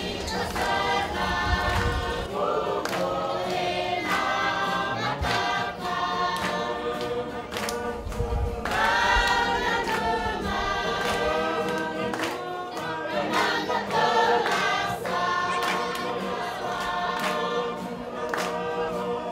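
A choir singing, many voices in harmony.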